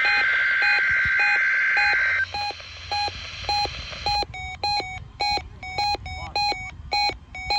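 NOAA Weather Radio weekly test signal: a SAME digital header burst, a shrill two-tone data screech, for about the first two seconds, then a fast string of short electronic beeps, about three a second, which turn harsher about four seconds in.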